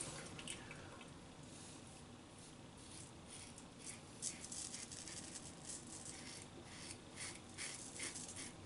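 Razor blade scraping through lathered stubble in a run of short, faint strokes, most of them from about three seconds in.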